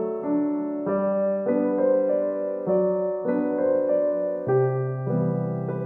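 Background music: a slow, gentle keyboard melody, a new note or chord struck every half second or so.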